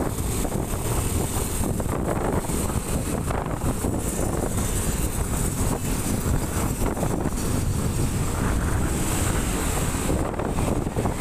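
Steady wind rushing over the microphone of a moving motorbike, with low engine and road noise from the surrounding traffic underneath.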